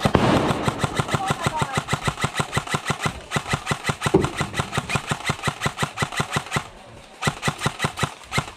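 Airsoft electric rifle firing on full auto: a long burst of rapid, evenly spaced shots, a short pause, then a second brief burst near the end.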